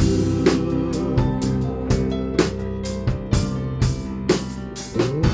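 Live worship band playing an instrumental passage between sung lines: sustained guitar and bass chords over a steady drum-kit beat.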